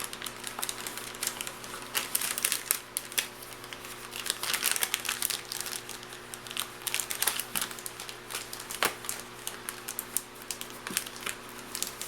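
Plastic MRE pouch and ration-heater sleeve crinkling and rustling as they are handled and kneaded, in irregular crackles throughout, over a faint steady hum.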